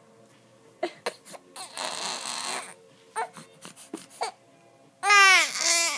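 Baby fussing: a few soft whimpers and catches of breath, then near the end a loud, high cry that bends down in pitch.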